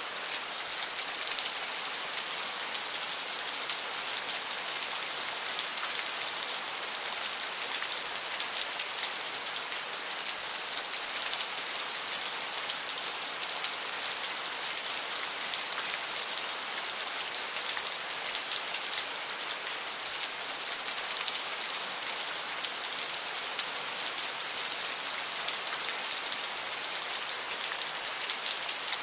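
Steady rain, an even, unbroken hiss of falling drops with fine specks of individual drops through it.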